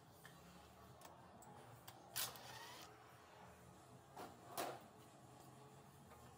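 Near silence, broken by two short scraping sounds, one about two seconds in and another a little past four seconds.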